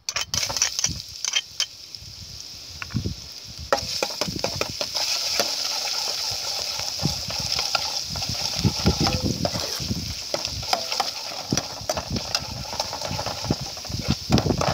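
Minced garlic sizzling as it fries in hot oil in an aluminium pot, the sizzle starting suddenly as the garlic goes in and growing louder and steadier a few seconds later. A metal spoon scrapes and clinks against the pot as the garlic is stirred.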